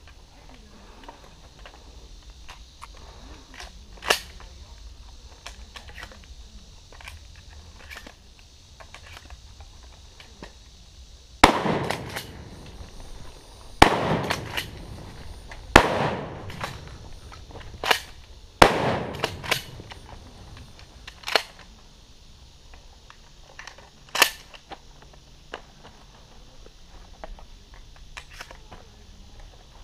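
Shotgun fired four times, about two seconds apart, each shot a loud boom with a long trailing echo. Several sharper, quieter cracks fall before, between and after the shots.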